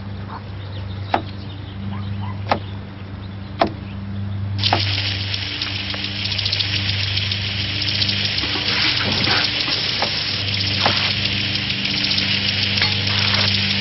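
A knife chopping a cucumber on a wooden cutting board, three sharp knocks a little over a second apart. About four and a half seconds in, a loud hiss of water spraying from a kitchen sink's hose sprayer starts and keeps on, over a low steady hum.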